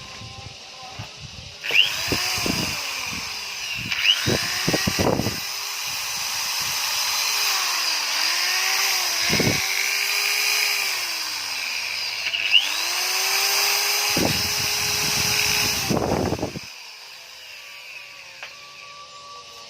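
Electric motor of an NRT Pro power tool running for about fifteen seconds, spinning up with a rising whine several times as it is triggered, its pitch wavering as it runs, then cutting off near the end.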